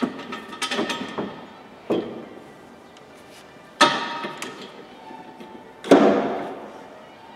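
Background music with a heavy struck hit about every two seconds, each ringing out.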